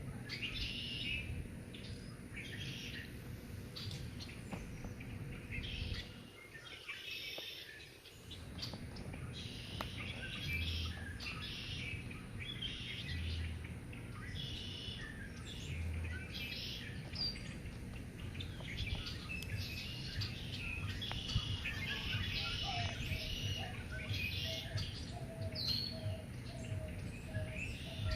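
Several songbirds chirping and singing in a mix of short calls, over a steady low outdoor rumble. Near the end a quick run of lower, evenly repeated notes joins in.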